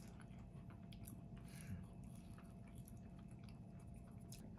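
Faint chewing of a mouthful of egg tart, with small scattered soft clicks.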